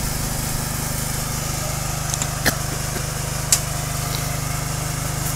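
Small engine-driven air compressor running steadily at a constant speed while a tyre is being inflated, with two sharp clicks about a second apart near the middle.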